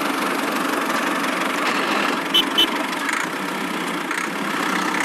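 Small motor of a miniature DIY construction machine running steadily, with two short high beeps about halfway through.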